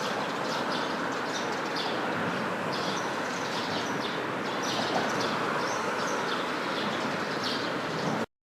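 Birds chirping in short irregular bursts over a steady outdoor rumble of noise. The sound cuts off abruptly near the end.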